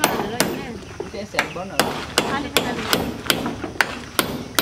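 Hammer driving nails through a corrugated galvanized iron sheet into a wooden post, a steady run of sharp blows about two to three a second.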